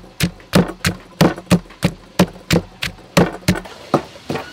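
Wooden pestle pounding chili, garlic and salt in a wooden mortar: regular dull knocks about three a second, turning lighter near the end.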